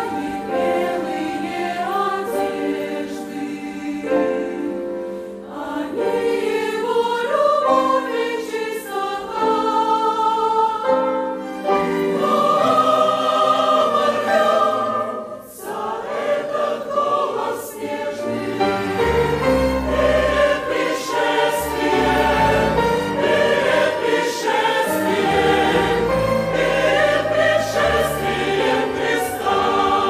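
Mixed choir singing a hymn, accompanied by an orchestra of violins and flutes. About halfway the music dips briefly, then low bass notes join and it goes on fuller.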